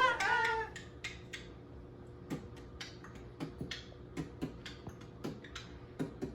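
A voice trails off at the start, then comes a run of short, sharp clicks, spaced irregularly at about one or two a second.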